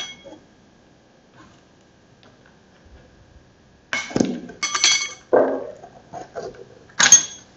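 Sharp, ringing metallic clinks and snips: a cluster about four seconds in and one more near the end, with rustling as a coiled high-pressure paint-sprayer hose is handled and the plastic ties binding it are cut with scissors.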